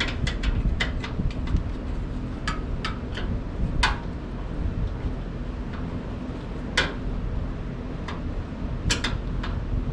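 Short, sharp metallic clicks and taps from tightening the bolts on a charcoal pizza oven's legs. There are several close together in the first second or so, then scattered single ones, over a steady low hum.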